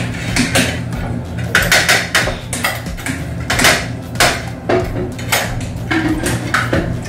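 Spoons and forks clinking and scraping against plates and serving dishes during a meal, a quick scatter of sharp clinks.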